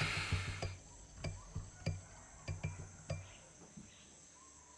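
Crickets trilling steadily and faintly, with a short rustle at the start and then about six sharp clicks and light knocks over the next two seconds.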